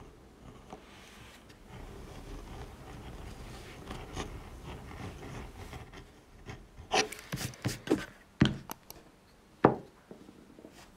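Edge beveler shaving the edge of a leather piece, a soft steady scraping. About seven seconds in, a run of sharp clicks and knocks follows, the loudest two near the end.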